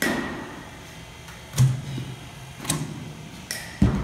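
About five sharp knocks and thuds from softball batting practice in an indoor cage: a pitching machine firing balls and a bat striking them. The first impact and one near the end are each followed by a short ringing tone.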